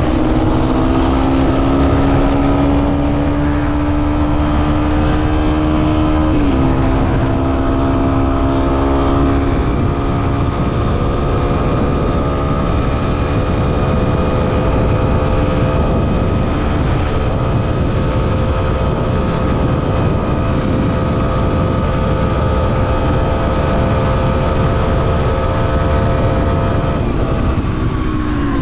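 Motorcycle engine pulling while riding. Its pitch climbs gradually, drops once when a gear is changed, then holds steady at cruise and falls away near the end as the bike slows. Wind rushes over the action-camera microphone throughout.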